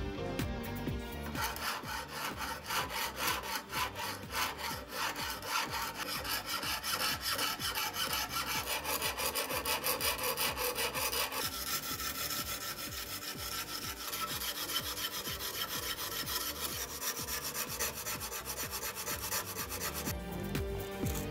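Flat steel file drawn back and forth in rapid rasping strokes across the edge of a clamped VG10 Damascus nakiri blade, grinding the edge down to remove a large chip. The filing starts about a second in and stops shortly before the end.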